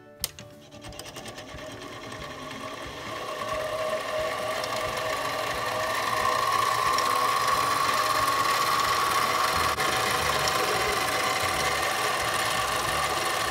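Harbor Freight mini lathe's motor switched on with a click, its whine growing louder over the first several seconds as it comes up to speed, then running steadily while a center drill in the tailstock is fed into an aluminum part.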